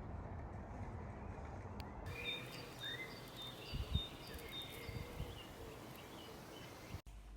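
Small birds chirping and singing, short high notes repeated several times with a few brief rising calls, over a steady background hiss. A brief low thump comes about four seconds in.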